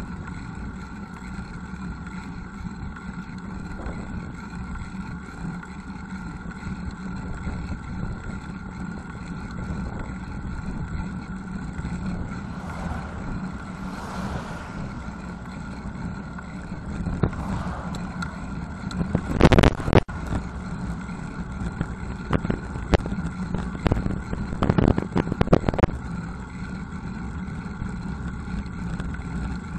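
Riding noise picked up by a bicycle-mounted bullet camera: steady wind on the microphone and rumble of the tyres on the road. A passing car swells up about 13 to 15 seconds in. A cluster of loud knocks and rattles comes about twenty seconds in, with more between about 22 and 26 seconds.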